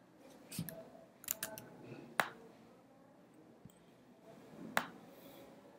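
Sharp, short computer mouse clicks: a few close together about a second in, then single louder clicks a little after two seconds and near the end, as lines are drawn and selected in a drawing program.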